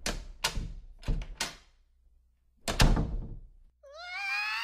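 A door being banged: several sharp thumps, the loudest a double thump about three seconds in. Near the end a high, held vocal squeal begins, rising briefly before levelling off.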